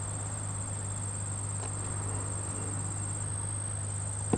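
Insects trilling steadily at a high pitch, with a low steady hum underneath.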